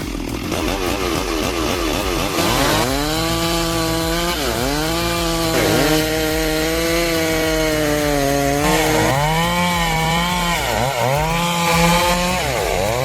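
Two-stroke chainsaw cutting through wood at high revs. Its engine pitch dips sharply and climbs back about six times as the chain loads up in the cut and frees again.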